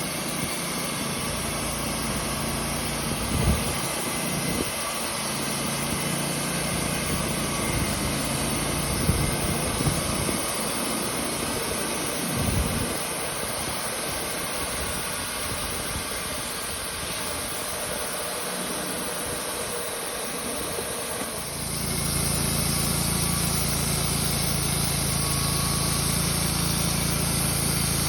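Portable band sawmill's engine running steadily, with a few knocks in the first half. About three-quarters of the way through it gets louder and holds a steadier, higher-revving hum.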